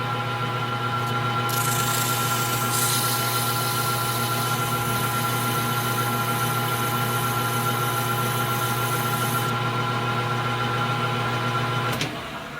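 Small metal lathe running steadily with a steady motor hum. From about a second and a half in to about nine and a half seconds, a hiss rides on top as 400-grit abrasive paper is held against the spinning steel stock to take the burrs off the cross hole. The machine switches off near the end and winds down.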